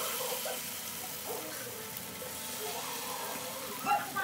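Hot cooking oil sizzling steadily around squash-and-carrot fritters (okoy) frying in a pan as spoonfuls of batter go in. A brief louder sound stands out near the end.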